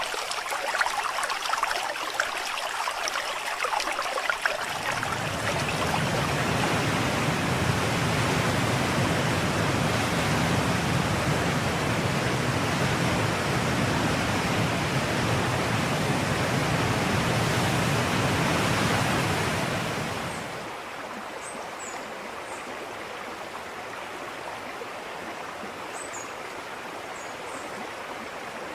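River water gurgling and rushing. About four seconds in it turns fuller and deeper; about twenty seconds in it drops to a softer, thinner hiss, with a few faint high chirps near the end.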